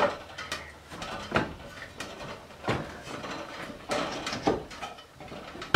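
Footsteps and irregular wooden knocks on the plank floor and ladder as children climb up through a hatch into a barn loft.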